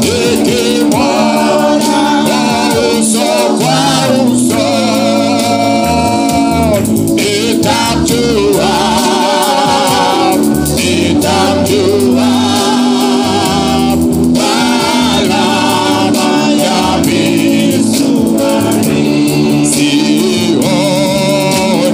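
Gospel song led by a male singer on an amplified microphone, with voices joining in and steady sustained keyboard chords underneath.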